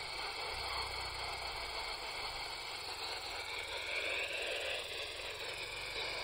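Steady radio static hiss from a handheld PMR radio's speaker, its squelch open on a noisy channel with no clear voice.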